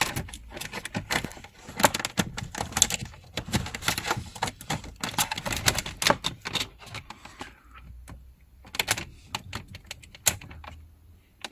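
Irregular plastic clicks and knocks of a car's instrument cluster being handled, plugged back into its connector and pushed into its place in the dashboard. The clicks come in quick runs, with a couple of short lulls.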